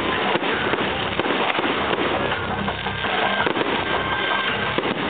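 Fireworks going off: a dense, continuous run of bangs and crackling as shells burst and scatter sparks.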